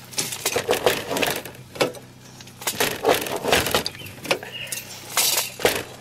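Breaker bar and socket turning the square-headed bolt of a helical earth anchor by half turns, winding the tie-down strap tight: a string of irregular metallic clicks, knocks and scrapes, with gravel crunching under the work.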